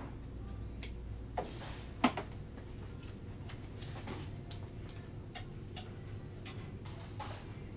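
Scattered light clicks and brief rustles of gloved hands handling small plastic containers and bags, with one sharper click about two seconds in, over a steady low hum.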